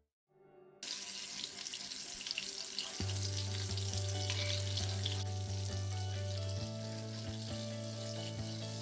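Mutton reshmi kebabs shallow-frying in hot oil in a pan, a steady hissing sizzle that starts abruptly about a second in.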